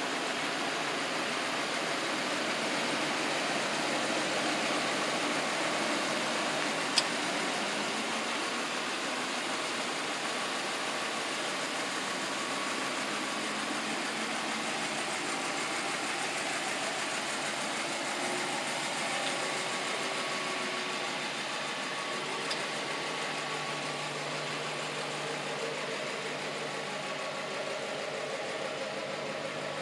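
2011 Ram 1500 pickup engine idling steadily under a broad outdoor hiss, its low hum coming through more clearly near the end. A single sharp click about seven seconds in.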